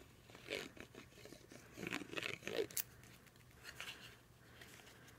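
Faint rustling and light scuffs of cardstock being handled and pressed down onto a card base, in a few short bursts.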